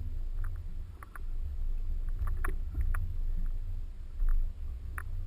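Low, uneven rumble of a Suzuki Jimny 4x4 driving off-road through snow, with scattered light clicks and knocks.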